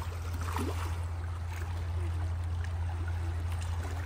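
Outdoor shoreline ambience: a steady low rumble with a faint hiss, and faint voices in the background.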